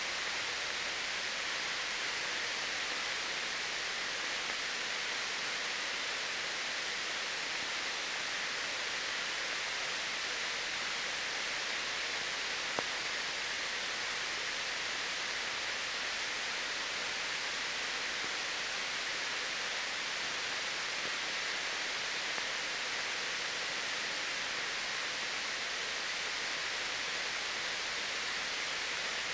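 Steady, unchanging hiss with no other sound in it, the background noise of an old film's soundtrack transfer, with one faint click about thirteen seconds in.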